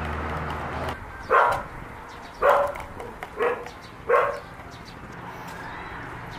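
A dog barking four times, about a second apart, each bark short and loud.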